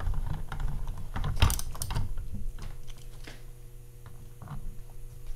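Light metallic clicks and taps of a hand tool and small parts working on a VW manual transmission's reverse shift linkage, with one sharper clink about a second and a half in and fewer clicks in the second half.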